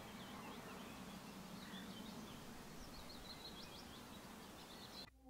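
Faint outdoor ambience: small birds chirping now and then over a steady background hiss. It cuts off suddenly just before the end.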